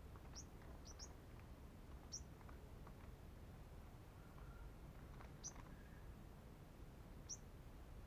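Sunbird giving short, high, thin chirps that flick upward in pitch, faint and well spaced: three in the first second or so, one about two seconds in, one past halfway and one near the end.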